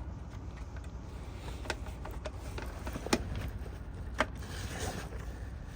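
Light clicks from mainsail cars being handled and slipped off the mast track onto a 3D-printed track section, with sharper clicks about a second and a half, three and four seconds in, over a steady low rumble.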